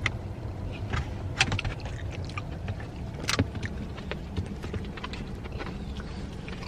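Scattered sharp crunches and clicks of a cooked chicken bone being chewed, over a steady low hum of a car's interior.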